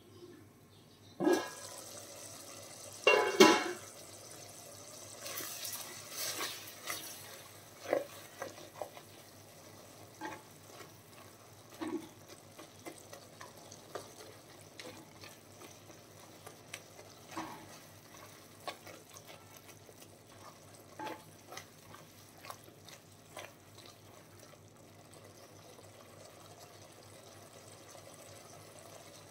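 Cooking utensil knocking and scraping in a pan: a sharp knock about a second in, a louder clatter a couple of seconds later, then lighter scattered taps over a faint steady hiss.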